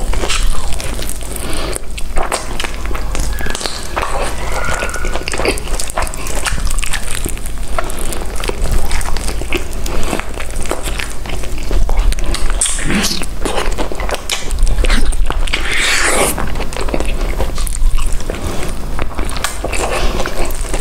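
Close-miked eating of fried chicken: irregular crisp biting and chewing, with many sharp crackles and wet mouth sounds.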